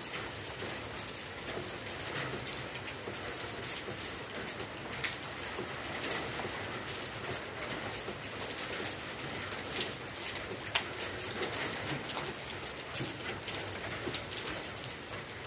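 Steady rain falling, with a constant hiss and many sharp drop ticks striking nearby surfaces, and a bird calling now and then behind it.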